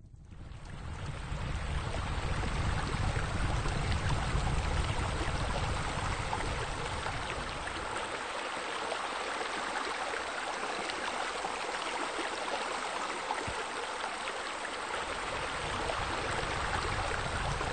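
Steady rush of running water, fading in from silence at the start. A low rumble underneath drops away about halfway through and returns near the end.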